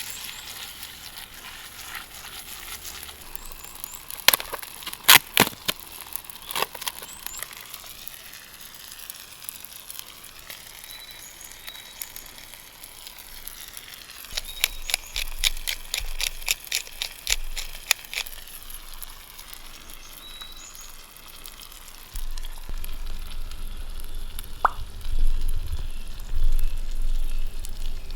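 Food sizzling in a pan over a wood campfire, with sharp crackles and clicks, a quick run of them about halfway through. A low rumble comes in near the end.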